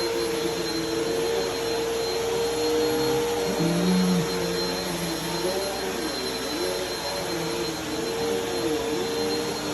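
Bissell vacuum cleaner running steadily: a constant motor hum and rushing air noise, with a steady whine and slight wavering in pitch.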